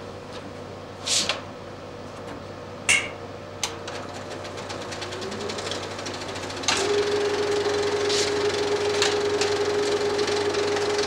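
35 mm film projector starting up: a few sharp clicks as controls are worked, then the mechanism runs up with a rising hum and a fast, even clatter of the film-advance intermittent. About two-thirds of the way in it gets louder and settles into a steady hum and clatter at running speed.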